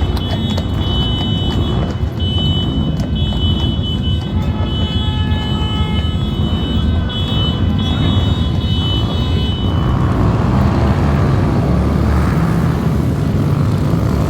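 A group of motorbikes running with a loud, steady engine rumble. High steady tones come and go over it for the first ten seconds or so. After that the tones stop and a rougher rushing engine noise takes over.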